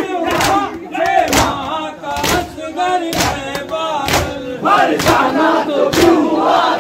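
A crowd of men chanting together while beating their chests in matam, the hand slaps landing in unison about once a second.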